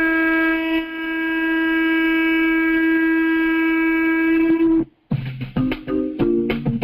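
A shofar sounded in one long, steady blast that cuts off just before five seconds in. Then a recorded song with guitar and drums starts.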